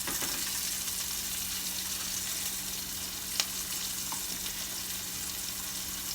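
Chopped onion sautéing in avocado oil in a pan, a steady gentle sizzle over a low steady hum, with one sharp click about three and a half seconds in.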